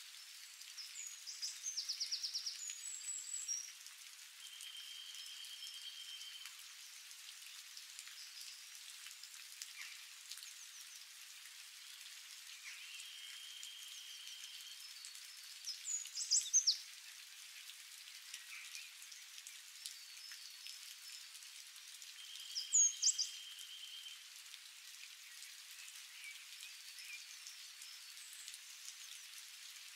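Steady light rain falling on leaves as a soft even hiss. Over it come loud, high, sharp chirping calls three times, and three times a held high whistling note lasting a second or two.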